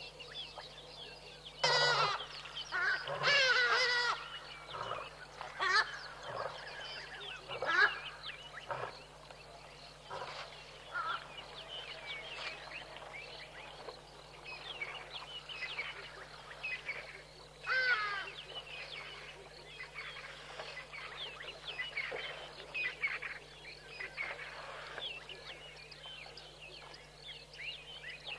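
Wild birds calling over one another, with a steady background of smaller bird calls. Louder bursts of calls come about two and three to four seconds in, and again around eighteen seconds in.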